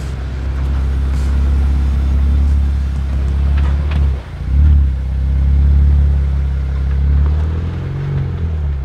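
Jeep Wrangler engine running under throttle at rock-crawling pace. It drops off sharply about four seconds in, then picks up again with a brief surge.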